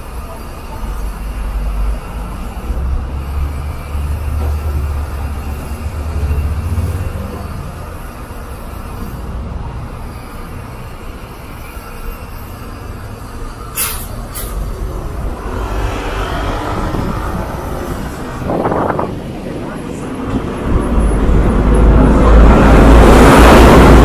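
Diesel city buses at a busy stop: a bus engine running at idle with voices of waiting passengers. There is a couple of sharp, short sounds a little past halfway, then near the end a bus pulls up and passes close, its engine rumble and rushing noise swelling to the loudest part.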